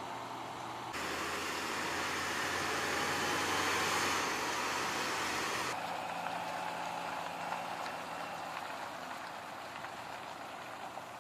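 Military heavy equipment transporter truck's diesel engine running as the tractor-trailer rolls slowly, with a steady hiss over a low hum. It turns louder abruptly about a second in, swells for a few seconds, and drops back abruptly near six seconds.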